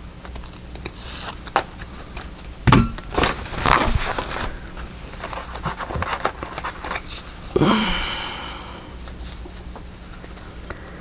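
Paper craft pieces being handled and positioned: rustling and crinkling of paper, with a few sharp knocks and clicks, the loudest about a third of the way in.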